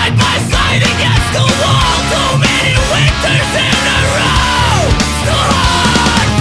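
Loud post-hardcore punk rock music from a full band, with steady drum hits and a pitched line that slides steeply down about five seconds in.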